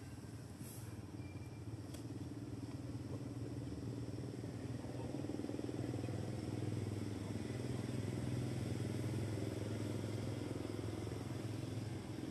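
Low, steady engine rumble of a motor vehicle, growing louder about four seconds in and holding there.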